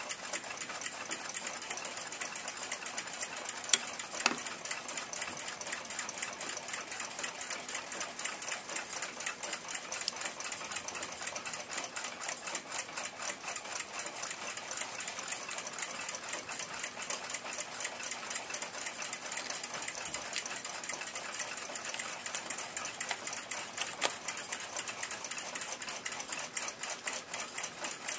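Rapid, steady mechanical ticking, like a watch movement running, with two sharper clicks about four seconds in.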